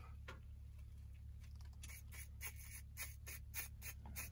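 Spinning reel being cranked to reel in a hooked lake trout through an ice hole, giving a run of faint sharp clicks that pick up to about four or five a second after the first two seconds.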